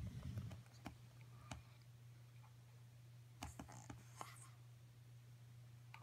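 Near silence: a steady low room hum with a few faint, scattered clicks and small rustles, and a soft thump at the start.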